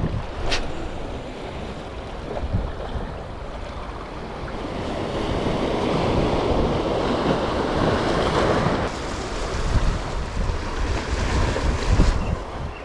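Small waves washing against shoreline rocks, with wind rumbling on the microphone. The wash swells in the middle and drops away about nine seconds in; a sharp click sounds about half a second in.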